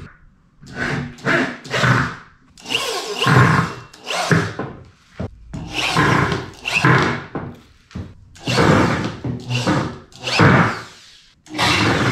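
Corded electric drill driving screws through metal braces into a pine 2x4, run in about ten short bursts that stop and start.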